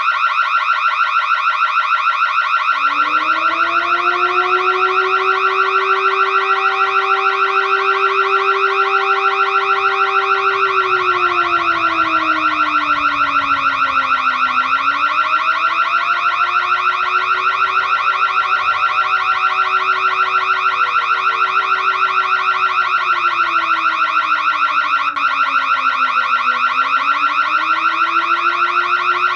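Electronic burglar alarm sounding continuously: a loud, rapidly pulsing high electronic tone. About three seconds in, a lower siren joins it and slowly wails down and back up, twice.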